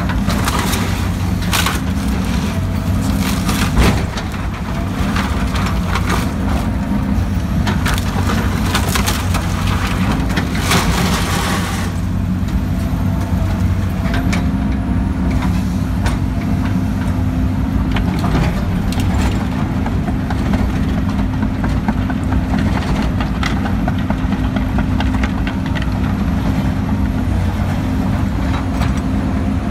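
John Deere 330 excavator's diesel engine running steadily, heard from the cab, while wood cracks and splinters as the stump shear crushes building debris. The crunching is densest in the first dozen seconds, with one loud bang about four seconds in, and thins to scattered cracks after that.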